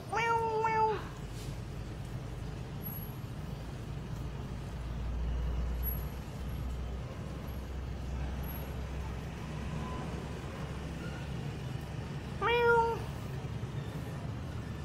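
Two short, high whining calls from a pet animal, each rising at the start and then holding its pitch: one just after the start lasting nearly a second, and a shorter one near the end. A low rumble swells and fades in the middle.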